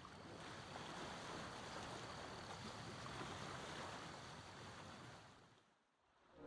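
Sea surf washing steadily, swelling over the first second and fading out near the end.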